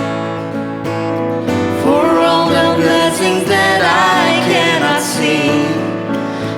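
Live worship music with guitar accompaniment. A voice sings a melodic line from about two seconds in.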